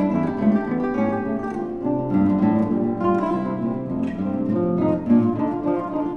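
Instrumental music led by plucked acoustic guitar, notes picked in a steady flowing pattern.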